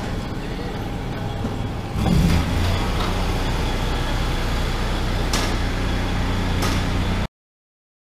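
Steady low hum of machinery running on a construction site, growing louder about two seconds in, with two sharp knocks later on; it cuts off suddenly about seven seconds in.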